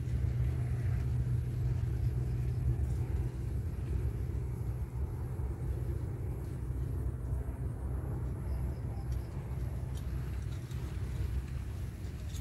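Wind buffeting the microphone: a steady low rumble that rises and falls slightly, with a faint click about ten seconds in.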